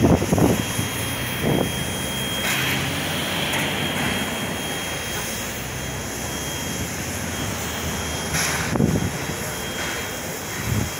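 NSW 59 class 2-8-2 steam locomotive 5917 passing close below, working hard under heavy smoke. Its exhaust and running gear make a loud, steady rumble, with louder bursts at the start, about a second and a half in, and again near nine seconds.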